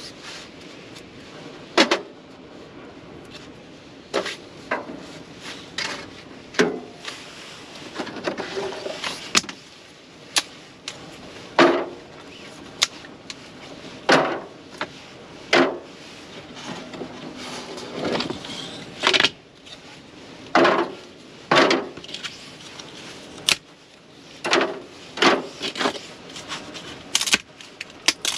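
Firewood and kindling being loaded and arranged in a small metal wood stove: irregular wooden knocks and clatters against the firebox, roughly one every second or two, with some scraping between them.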